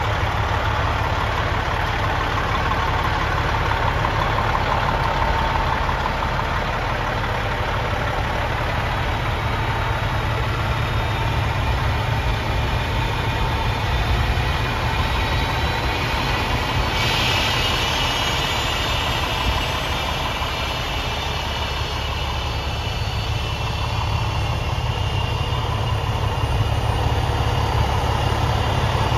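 2007 Freightliner truck's Detroit Series 60 inline-six diesel engine idling steadily, with a deep, even low rumble.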